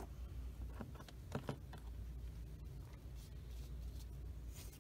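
Small clicks and taps of hobby tools and a plastic kit part being handled on a cutting mat, a few sharp ones close together about a second in. Near the end, a short scrape as the plastic cap of a Tamiya Extra Thin cement bottle is twisted off, over a low steady room hum.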